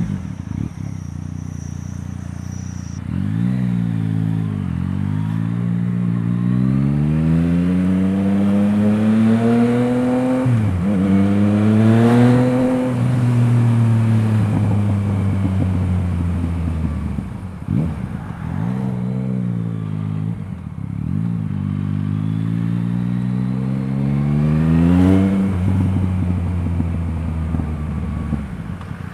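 Yamaha MT-09's three-cylinder engine through an Akrapovič exhaust on the move: steady for the first few seconds, then rising in pitch as it accelerates, with a sudden drop at a gear change. It falls away as the throttle closes, pulls up again to another gear change near the end, then holds steady.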